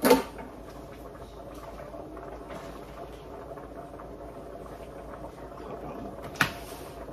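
Pot of potatoes boiling on an electric stove, a steady bubbling, broken by two sharp knocks: one right at the start and one about six and a half seconds in. The second knock comes as a foil pan of baked beans is set down on the glass cooktop.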